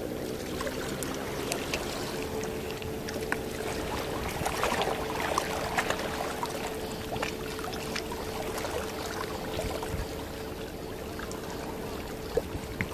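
Small waves lapping and trickling among shoreline rocks, with scattered small splashes and clicks, busiest a few seconds in, over a steady hum.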